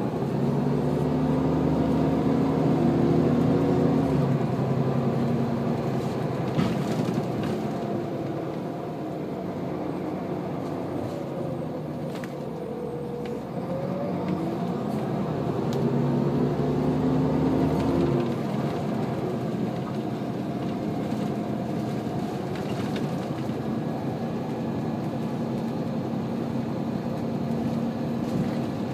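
Scania L94UB bus's five-cylinder diesel engine heard from inside the saloon, pulling hard for the first few seconds, easing off, dipping and rising in pitch around the middle, pulling again, then running more lightly near the end as the bus drives along.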